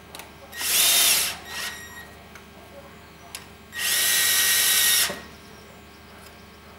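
Drill on its lowest torque setting spinning a socket on an extension to run cylinder head bolts down before torquing. It runs in two short bursts, the second about twice as long as the first, with light clicks of the socket being moved between bolts.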